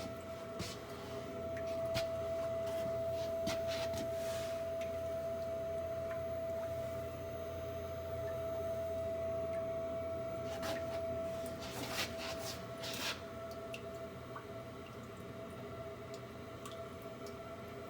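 Navien NHB110 propane-converted boiler running with a loud, steady high-pitched whine, which eases somewhat in the last third. A few clicks and short hissing bursts come about ten to thirteen seconds in. Of two contractors who looked at the whine, one blames the fuel mixture and the other the water flow through the boiler.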